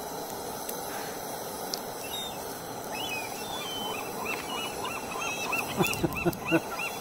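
A flock of birds calling: a rapid series of short repeated calls begins about three seconds in and grows busier and louder toward the end, over a faint outdoor hush.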